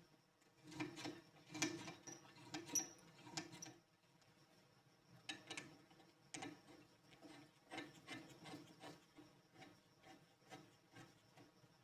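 Quiet, irregular rubbing and scraping strokes with small clicks, from hand work on the spray gun's parts.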